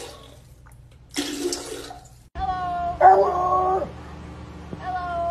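Toilet water rushing for about a second, then a dog howling: three long howls, the second the loudest.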